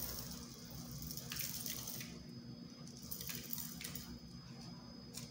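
Uncooked rice poured from a plastic tub into a glass jar of layered grains: a faint hiss of grains trickling in, in a few short spurts, with light ticks of grains against the glass.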